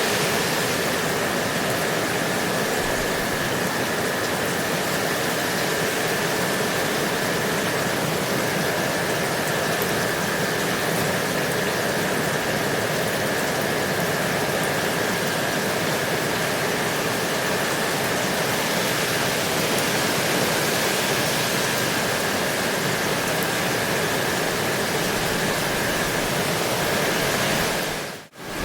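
Steady rain: an even, unbroken hiss with a faint steady high tone running through it, dipping out for a moment near the end.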